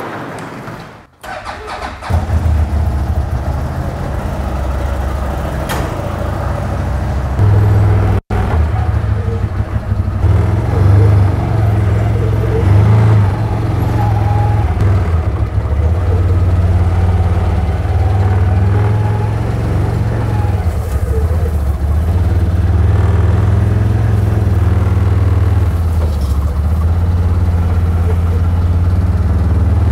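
CFMoto ZForce 950 Sport side-by-side's V-twin engine running, its speed rising and falling as the machine is driven up onto a tilted utility trailer. It gets louder about seven seconds in and swells and eases several times after that.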